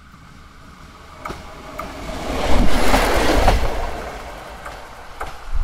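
A Czech class 810 diesel railcar passing close by: its engine and wheels build to a peak about three seconds in, then fade as it moves away. A few sharp clicks come from the wheels crossing rail joints.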